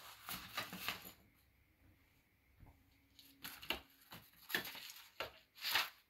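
Rustling and scuffing handling noise in short, irregular bursts, with a faint low hum briefly in the middle.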